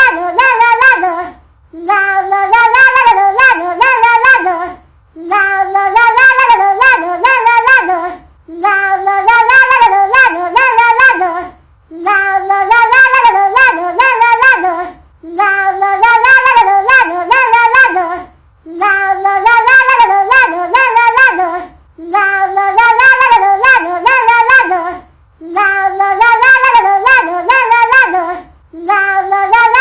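Cat ringtone: a short, high sung sing-song phrase, looped identically about every three and a half seconds with a brief gap between repeats.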